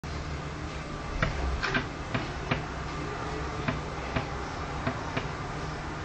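A sparrow pecking its beak against window glass: a string of sharp, irregular taps, about nine in all, some in quick pairs.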